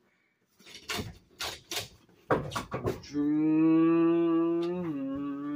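A boy humming a long, low, steady drone for about three seconds with a slight dip in pitch near the end: a mouth-made engine noise. Before it come a handful of sharp clicks and knocks.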